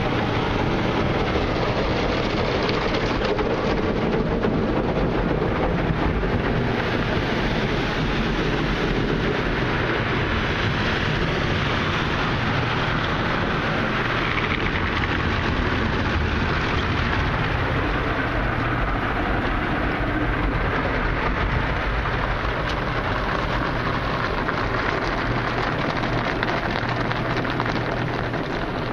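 Ryko SoftGloss XS 2 automatic car wash heard from inside the vehicle's cabin: water spraying and spinning cloth brushes scrubbing against the windows and body, a steady rushing noise.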